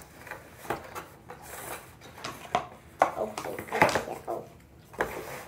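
A slime kit's box being handled and pulled open: irregular clicks, knocks and rustles of the packaging, busiest about three to four seconds in.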